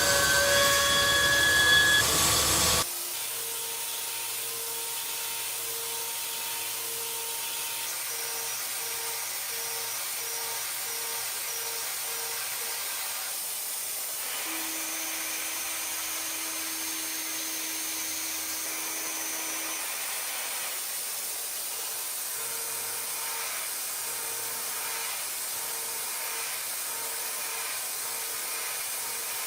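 CNC machine running: a steady hiss of spindle and cutting noise with faint steady tones. A louder section with several higher tones cuts off abruptly about three seconds in.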